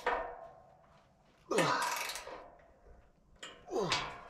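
Wrench turning a bolt that is being forced through slightly misaligned holes in a steel frame rail: three short rasping, creaking strokes of metal on metal, near the start, about one and a half seconds in and near the end, the middle one the loudest. The bolt's threads are being used to draw the steel into line.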